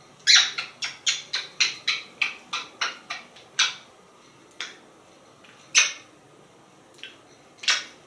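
African grey parrot making mimicked kissing sounds: a quick run of about a dozen short smacks, roughly three a second, then a few single kisses spaced a second or so apart.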